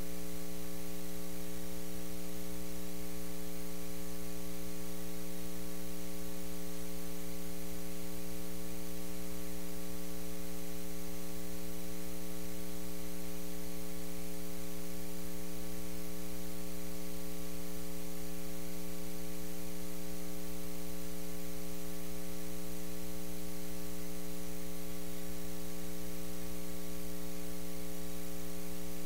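Steady electrical mains hum with a buzzy edge, unchanging in pitch and level, over faint hiss: an electrical fault in the audio feed rather than the sound of the room.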